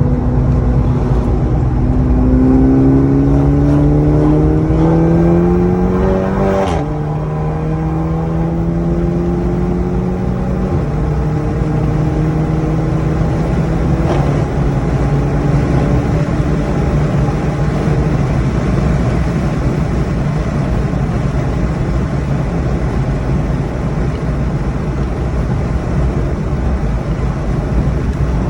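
Mk6 VW Golf GTI's turbocharged four-cylinder engine under way: the revs rise for about five seconds, drop suddenly about seven seconds in, as at a gear change, then the engine runs steadily at lower revs under a constant rush of noise.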